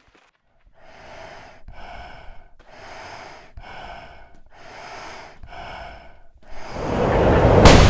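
A man's heavy, laboured breathing, six breaths in and out about a second apart. Then a swelling rush of noise builds quickly to a sharp, loud hit near the end, a film sound-effect riser.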